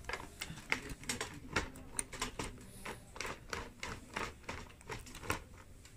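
Screwdriver working screws loose from an electric heater's stand: a run of irregular light clicks and scrapes, two or three a second.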